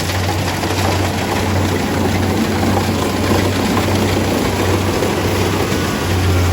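Kubota DC-70G rice combine harvester running, its diesel engine giving a steady low hum under the dense mechanical clatter of the harvesting machinery. The hum weakens a little past the middle and comes back strongly near the end.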